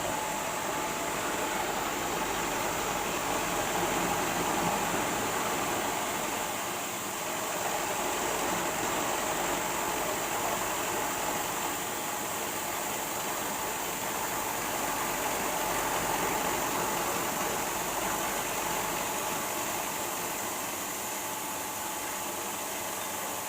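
Mahkota KD-450 rice polisher running: a steady mechanical whir with a faint constant tone.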